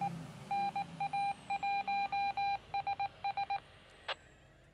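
Mobile ham radio transceiver giving a rapid, irregular series of short, identical beeps for about three seconds as its front-panel keys are pressed. A single sharp click follows near the end.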